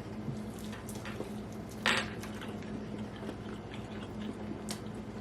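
Close-up chewing of wet, sauce-coated fried chicken: soft squishing with small irregular crackles, and a sharper click about two seconds in. The coating is soggy rather than crunchy.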